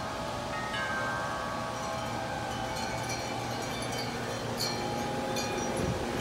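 Metal tube wind chime ringing in strong gusty wind: several overlapping, sustained tones with light strikes between them, over a steady rush of wind.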